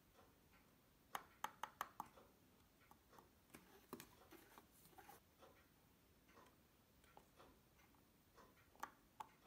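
Small, sharp metallic clicks and taps of steel tweezers working on a pocket-watch chronograph movement. A quick cluster of about five clicks comes just over a second in, lighter scattered taps follow through the middle, and two more clicks come near the end.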